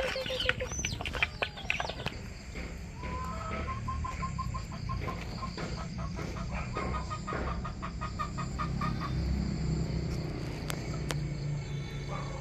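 Chickens calling: a burst of sharp, high calls in the first two seconds, then a run of quick, repeated clucks. A steady low rumble runs underneath.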